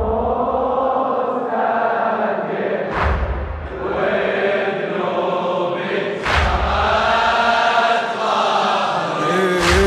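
Male voices chanting long, drawn-out notes of a Shia mourning latmiya, without clear words, over three deep booms about three seconds apart.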